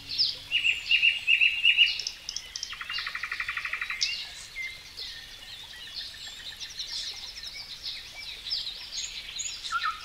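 Several songbirds singing and calling at once: a chorus of chirps and whistles, with a fast trill lasting about a second, about three seconds in.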